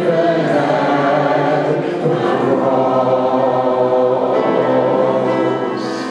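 Church worship choir singing a hymn together with sustained notes; the singing grows quieter near the end.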